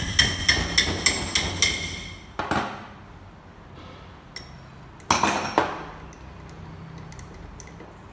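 A metal tool striking metal parts of a common-rail diesel fuel pump: a quick run of about seven ringing taps, roughly four a second, then two single clanks a few seconds later.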